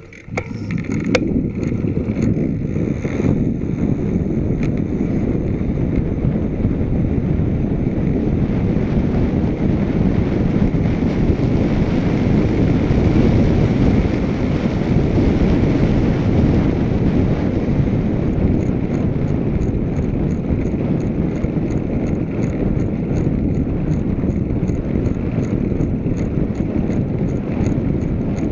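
Wind rushing over the microphone of a camera on a moving road bicycle: a steady low rumble that builds in the first second as the bike gets going. A light, regular ticking comes in about two-thirds of the way through.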